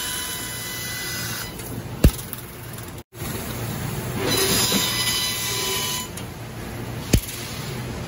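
CNC laser cutting machine cutting 6 mm steel plate: a steady hiss with faint high whining tones from the cutting head, which drops away between cuts about one and a half seconds in and again about six seconds in, then comes back. Two sharp clicks sound, about two seconds in and about seven seconds in.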